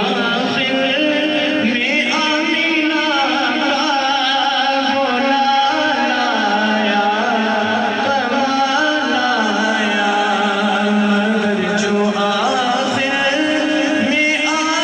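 A male reciter singing a naat, an Urdu devotional poem, in a melodic chant that slides between long held notes.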